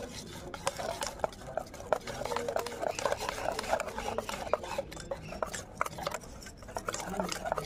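Wire balloon whisk beating thick gram-flour (besan) batter in a stainless steel bowl: a quick, irregular run of clicks and scrapes as the wires hit the metal.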